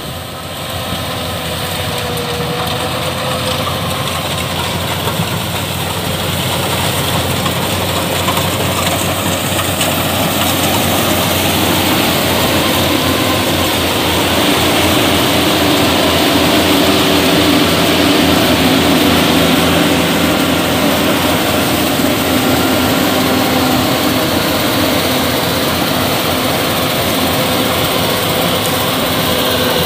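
Yanmar YH850 rice combine harvester running steadily while harvesting: diesel engine and threshing machinery together, with several steady hum tones. It gets louder from about ten seconds in.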